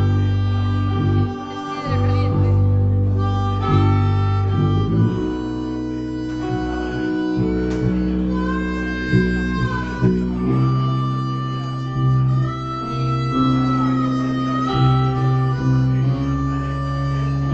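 Instrumental background music: long held melody notes over a steady bass line.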